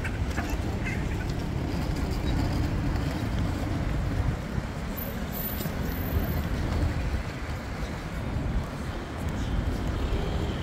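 Steady road traffic noise on a city street: a continuous low rumble of passing vehicles.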